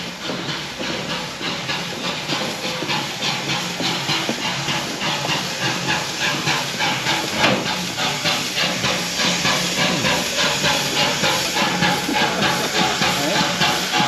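Steam locomotive hissing loudly, with the steam coming in a steady rhythmic pulse of about two to three beats a second.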